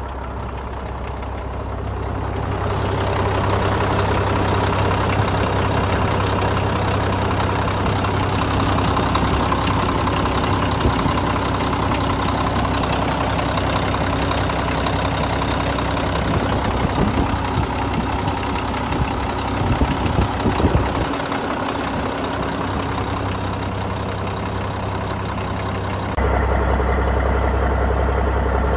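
Mack RD688S dump truck's diesel engine idling steadily, with a few sharp clicks about twenty seconds in. Near the end the sound changes abruptly, becoming a louder, deeper low hum.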